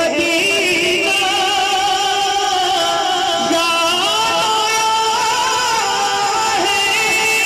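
A man singing a naat (a devotional Urdu poem) into a microphone, in long held notes that waver up and down in pitch.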